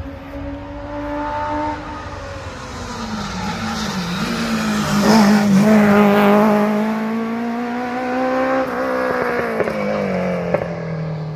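A rally car's engine running hard through its gears on the special stage, the pitch climbing and dropping with each shift. It grows loudest about five seconds in, then carries on a little quieter.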